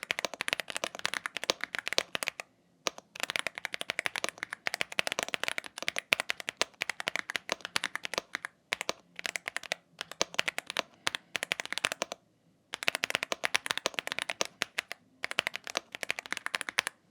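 Womier S-K71 mechanical keyboard, stock out of the box, being typed on quickly: rapid runs of keystrokes from its factory-lubed linear switches, broken by a few short pauses.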